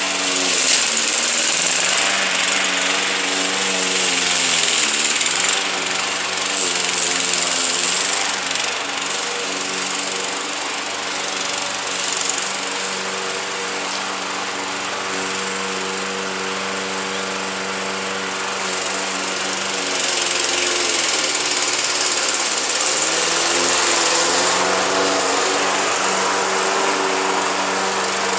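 A Craftsman 21-inch push mower's Briggs & Stratton 550 series 140cc single-cylinder four-stroke engine runs while cutting thick, overgrown grass. Its pitch dips and recovers a few times as it takes the heavy load without stalling. It grows somewhat fainter in the middle and louder again near the end.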